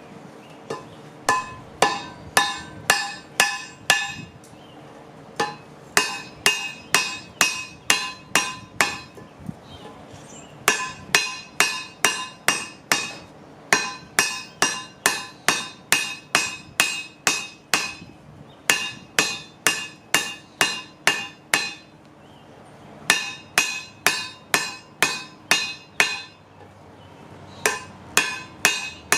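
Hammer blows on a railroad-track anvil, about three strikes a second in runs of eight to twelve with short pauses between. Each strike rings with a bright metallic tone.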